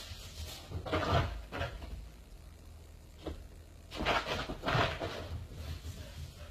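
A dog running across the floor, its paws scuffling and thudding in a few short bursts, the loudest about a second in and again between four and five seconds in.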